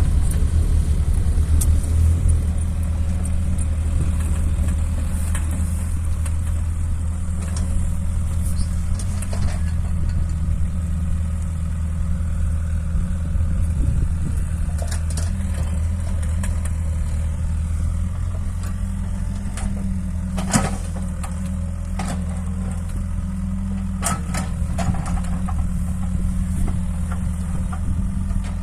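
Excavator's diesel engine running steadily, with a few short knocks from the machine in the second half.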